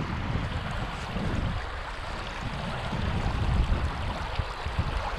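Shallow creek water running and rippling over stones, a steady rushing hiss, with wind buffeting the microphone in low rumbles.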